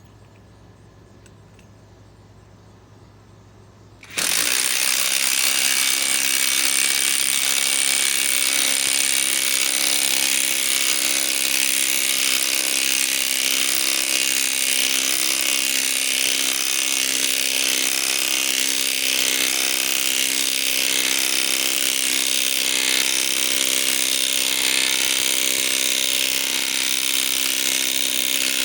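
Metabo SSW 18 LT 300BL compact cordless impact wrench hammering continuously as it drives a long lag bolt into pre-drilled wood. It starts about four seconds in and keeps up a loud, steady, rapid rattle of impacts for over twenty seconds.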